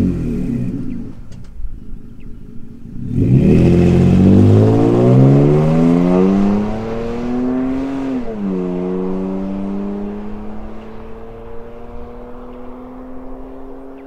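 Toyota Tacoma V6 breathing through an MPI cat-back dual exhaust, pulling away under acceleration. It is quieter for about the first three seconds, then the engine note climbs steadily in pitch until an upshift about eight seconds in drops it. After the shift it climbs again slowly and fades as the truck drives off into the distance.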